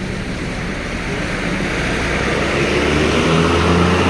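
A large bus's engine running and growing steadily louder as it comes closer, a low engine tone under a broad roar of engine and tyre noise.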